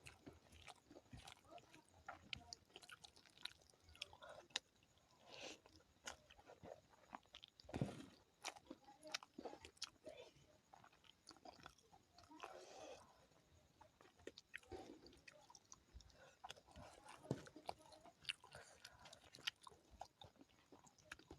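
Close-miked eating of curry and rice: steady chewing with many small wet mouth clicks, broken by a few louder bites and crunches.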